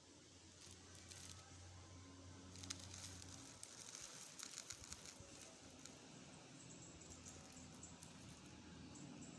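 Near silence: faint room tone with a low hum and scattered soft clicks and rustles.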